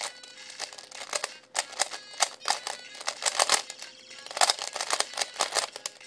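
Rubik's cube being turned rapidly by hand during a speedsolve: fast runs of plastic clicking and clacking as the layers turn, broken by short pauses. Faint background music underneath.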